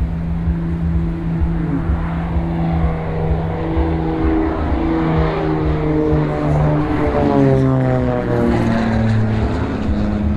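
Extra 300S aerobatic plane's propeller and six-cylinder piston engine droning through a display manoeuvre. The pitch slides down about seven seconds in, then holds steady lower.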